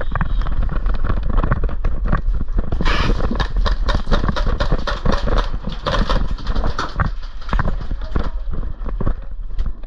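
Running footsteps on the ground, with gear rattling and handling noise on a body-worn camera microphone. There is a continuous stream of quick, uneven thuds over a steady low rumble.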